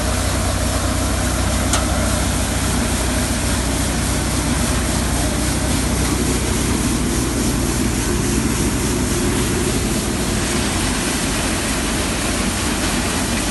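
Tractor-powered four-fan multicrop thresher threshing black gram: a loud, steady mechanical drone of the tractor engine under the broad rushing noise of the thresher's drum and fans, with a single short click about two seconds in.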